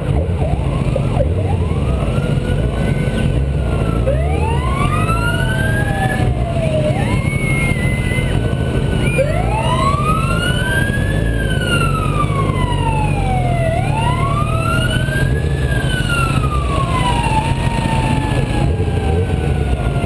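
Fire engine sirens wailing, rising and then falling slowly in pitch over and over from about two seconds in, with more than one siren's sweeps overlapping. A steady low engine rumble lies underneath.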